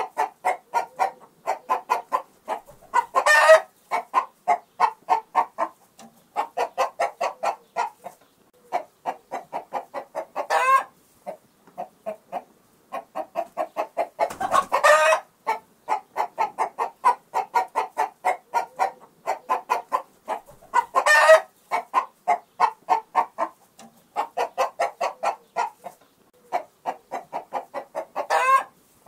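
Chickens clucking in quick runs of short clucks, broken every several seconds by a louder squawk.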